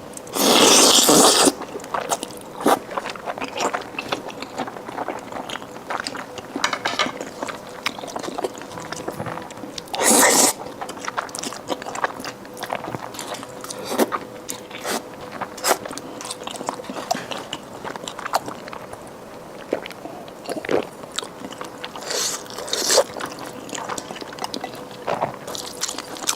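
Close-up eating sounds of a person chewing mouthfuls of rice and fatty braised pork belly: many small wet clicks of chewing and biting throughout, with two louder rushes about a second long, one near the start and one about ten seconds in.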